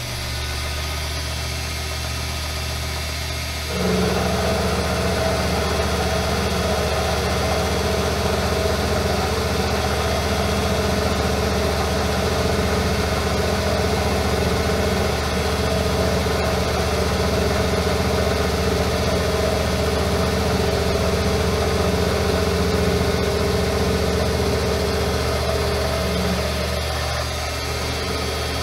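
Metal lathe running while turning down a small hot-rolled steel crankshaft journal between centres: a steady motor and gear hum. About four seconds in it grows louder with an added whine, which eases slightly near the end.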